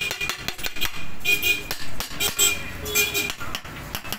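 Metal clicks and knocks from the Hero Honda Passion Pro's cast-aluminium clutch cover being pushed and tapped into place on the engine case, mostly in the first second. A vehicle horn honks briefly three times.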